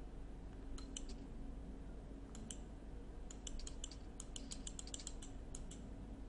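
Faint clicking of computer keys: a few separate clicks about a second in, then a quicker run of a dozen or so light clicks, over a low steady hum.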